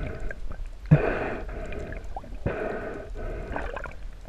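Underwater water noise rushing past the microphone, swelling in repeated swishing surges about every second and a half as the diver swims down.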